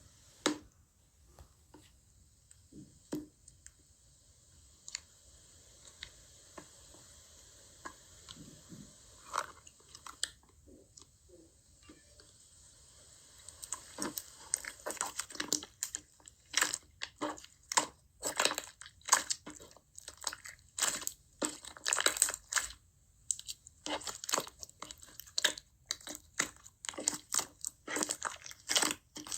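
Slime being squeezed and pressed by hand, making squishy clicks and crackling pops. The pops are sparse at first and come thick and fast from about halfway through.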